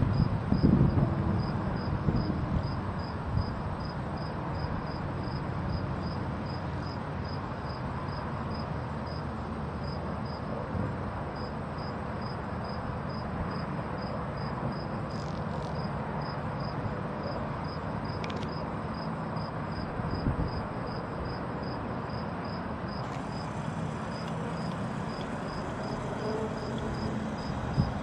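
Crickets chirping in a steady rhythm, about two to three chirps a second, with a short pause near the middle, over an even background hiss. A few low rumbles come near the start.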